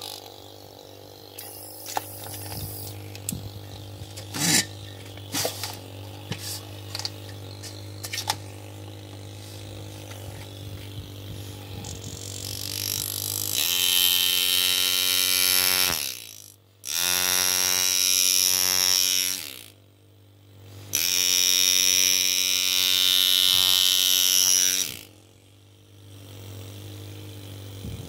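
Freshly rebuilt foot-controlled engraving handpiece with a new body tube and piston, buzzing as its piston hammers the graver into a metal disc. It runs in three long spells of a few seconds each, started and stopped by the foot pedal, after a first half of only faint hum and light clicks.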